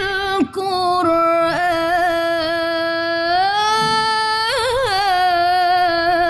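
A woman chanting a sholawat (Islamic devotional song) in Arabic, drawing one syllable out in long held notes. There is a short breath about half a second in, the pitch steps up a little past the middle, and a quick wavering ornament comes around two-thirds of the way through.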